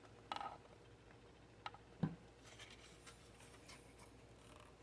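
Faint clicks and light taps of small die-cast toy cars and their packaging being handled, with one louder low knock about two seconds in.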